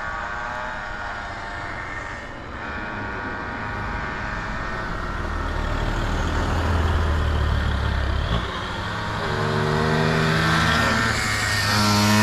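Small 50 cc motorbike engines of a pocket bike and a Balkan 50 moped racing flat out towards the listener. The engine note grows louder and climbs in pitch in steps over the last few seconds, and is loudest at the very end as they arrive.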